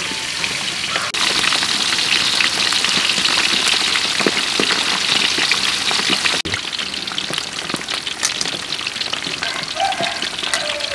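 Fish deep-frying in hot oil in a metal wok: a steady sizzle with crackling pops throughout.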